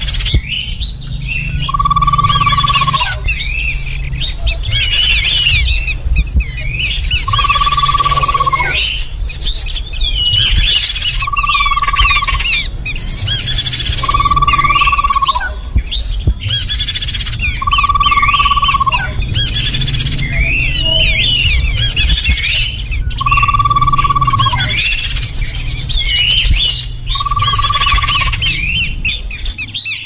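Bird-lure recording of small forest birds such as babblers: a clear, steady whistled note about a second long, repeated seven times a few seconds apart, over busy higher chirping and twittering calls.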